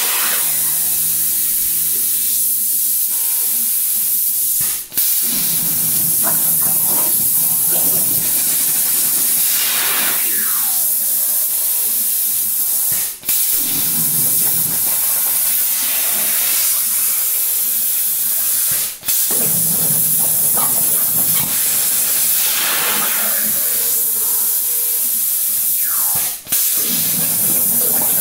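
CNC plasma cutter's arc cutting 3/16-inch steel plate: a loud steady hiss that breaks off briefly four times as the arc goes out between cuts and restarts.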